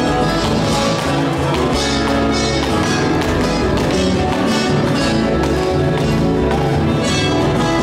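Live instrumental folk music: an accordion and two acoustic guitars strummed in a steady rhythm, with a violin.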